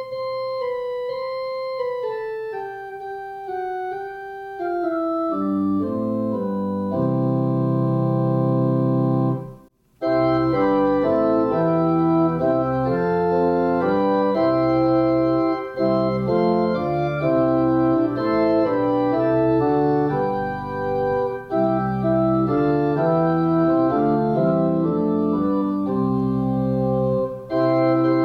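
Organ playing: a single melody line stepping downward over the first few seconds, then full sustained chords from about six seconds in. The sound cuts out briefly near ten seconds in, then the chords resume and change steadily.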